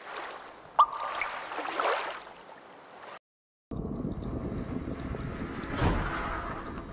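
Sound effects of an animated logo sting: a noisy whoosh with a sharp click about a second in, a brief silence, then a steady rushing noise with a low thump near the end.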